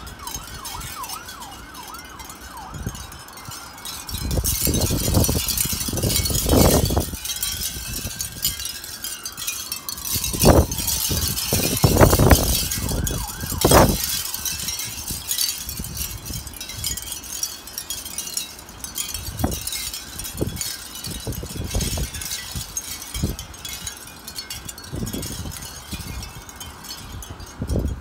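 Wind chime tinkling steadily in gusty wind, with a siren wailing in quick yelps at the start and a slower rise and fall around nine seconds in. Strong wind gusts buffet the microphone, loudest from about four to seven seconds and again from ten to fourteen.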